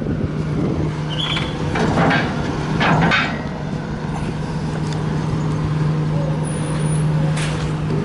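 Vehicle engines running with a steady low hum as cars drive onto a vehicle ferry, with a few short clunks about two and three seconds in and again near the end.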